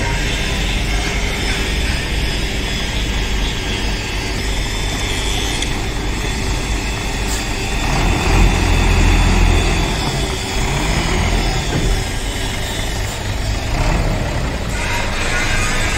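Hino truck's diesel engine running steadily, with a low rumble that swells about eight seconds in.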